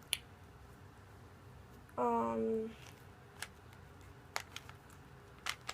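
Plastic Rubik's cube being twisted, a few sharp separate clicks as its layers turn. About two seconds in, a short steady hum from a person's voice, the loudest sound here.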